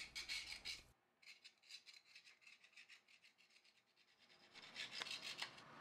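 Faint, rapid rubbing strokes on the rough cast-iron tailstock casting of a 1943 Hendey lathe. The strokes come in short runs, the loudest near the end.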